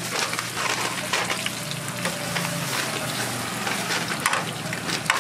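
Battered sandwich squares deep-frying in a wide wok of hot oil: a steady crackling sizzle, with a couple of sharp clicks near the end.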